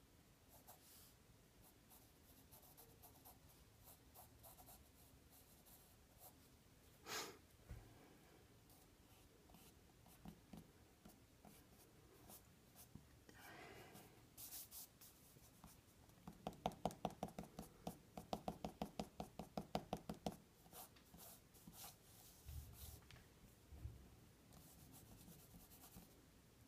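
Graphite pencil scratching on paper, mostly faint, with a run of quick back-and-forth strokes about two-thirds of the way through, the loudest part. A few soft low knocks follow near the end.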